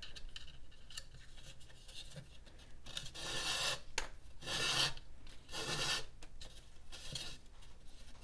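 Calf-leather lace drawn through a hole in a gourd's rim by hand, rubbing against the shell in four pulls about a second apart, with a few light clicks before them.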